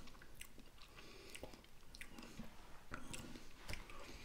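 Faint mouth sounds of a person tasting a sip of rum: scattered small wet clicks and lip smacks.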